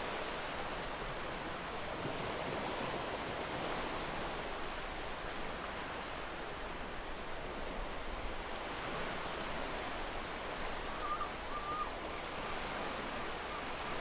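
Small ocean waves breaking and washing up a sandy beach: a steady rush of surf that swells and eases.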